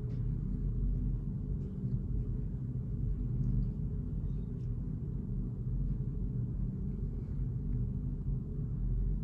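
Low, steady rumbling drone with several low tones held together, the ambient soundtrack of a video installation.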